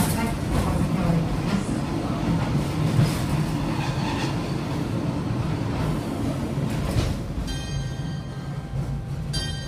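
Arashiyama torokko sightseeing train running on the rails, a steady rumble of wheels and carriage that eases slightly as it comes alongside a station platform. About two-thirds of the way through, a tune starts playing.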